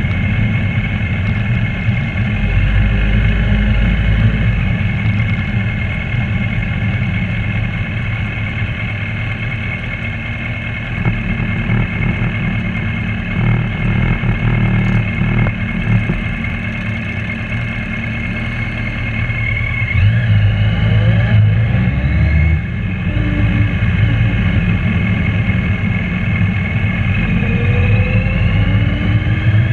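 Motorcycle engine running steadily while riding in a large group of motorcycles, with heavy wind rumble on the microphone. Other bikes' engines rise in pitch as they accelerate through the gears, a few times around twenty seconds in and again near the end.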